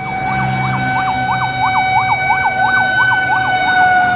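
Fire truck siren sounding on the move: a fast rising-and-falling yelp, about three sweeps a second, over a steady held tone.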